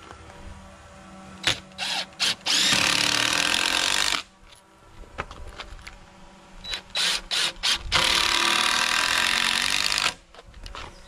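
Cordless drill running into a timber post-and-beam joint: a few short trigger blips, then two long runs of about one and a half and two seconds, some four seconds apart.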